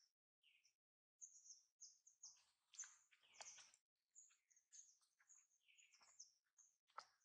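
Faint, rapid run of short high-pitched chirps and squeaks, one after another with brief gaps: animal calls.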